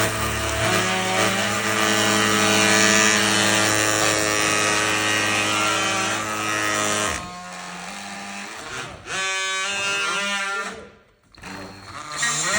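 Electric multi-tool cutter motor running with a steady whine. It drops lower about seven seconds in, comes back up, then cuts off briefly before starting again near the end.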